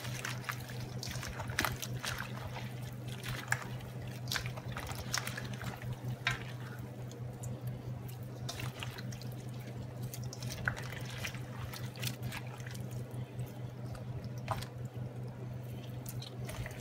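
Hands squeezing and mixing milk-soaked bread stuffing in a stainless steel bowl: irregular wet squelching and squishing with small clicks. A steady low hum runs underneath.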